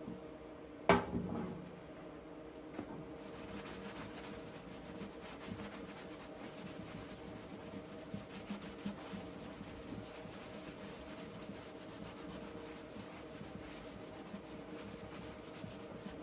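A painted steel car firewall being rubbed down by hand with mineral spirits, a continuous scratchy rubbing with small ticks. There is one sharp knock about a second in.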